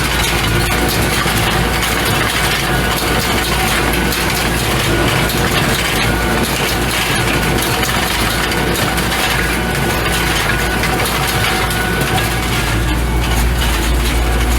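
Tractor engine running steadily as it pulls an IH 47 wire baler through alfalfa windrows, with the baler's working noise of hay being crushed and packed into bales over it.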